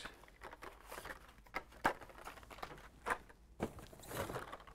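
Hot Wheels blister cards being handled and pulled from a cardboard case: scattered light clicks and rustles of plastic and card.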